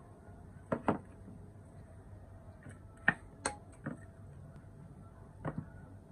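A wooden spoon and a dish knocking on a kitchen counter while rice is served: a double knock about a second in as the dish is set down, three knocks around three to four seconds, and another double knock near the end.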